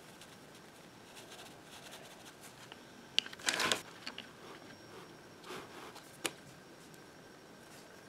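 Handling noises at a drawing desk: a sharp click about three seconds in, followed at once by a brief rustle, then a softer rustle and another sharp click around six seconds, over faint room hiss.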